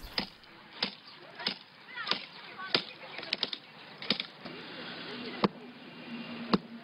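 A steel bar striking brick and concrete in sharp, regular blows, about one every two-thirds of a second, as a wall is chipped away by hand.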